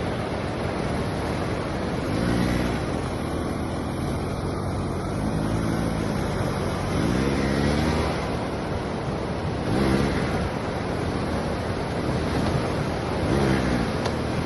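Enduro motorcycle engine revving up and easing off about five times under hard throttle, over a steady rushing noise.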